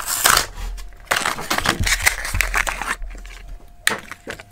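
Plastic blister packaging crackling and crinkling as a packaged diecast toy car is handled and unpacked, then a few light clicks about three seconds in.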